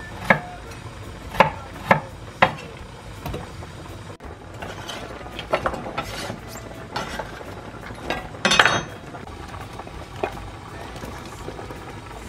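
Kitchen utensil sounds: a few sharp clacks of a utensil against a frying pan, then a knife cutting carrot on a wooden chopping board in short clusters of knocks, the loudest a clattery burst about two-thirds of the way through.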